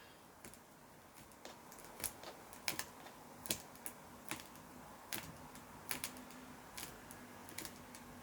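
Faint, sharp clicks and taps at an uneven pace, roughly one or two a second, some in quick pairs, like slow, hesitant typing or tapping.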